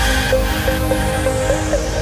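Electronic dance music without a drum beat: held synth chords, a short repeating melodic figure, and a hissing sweep that falls in pitch.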